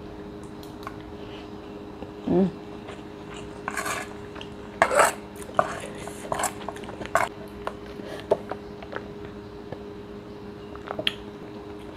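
Metal spoon clinking and scraping against a ceramic plate, a few separate strokes, between mouthfuls of chewing.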